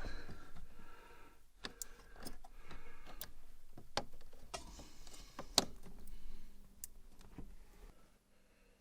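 Irregular sharp clicks, taps and light scraping from hands and tools working small hardware, threading air-ride line fittings into place.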